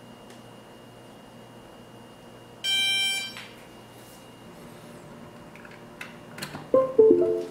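The Flexify quadcopter's flight electronics give a single electronic beep, about three quarters of a second long, as the drone is powered up with its battery. Near the end come a few plastic clicks, then a short stepped computer chime: the sign of the USB telemetry radio being plugged in and detected.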